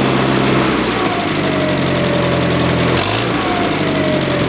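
Allis-Chalmers H-3 crawler bulldozer engine running and being revved: the engine speed drops about a second in and rises again about three seconds in.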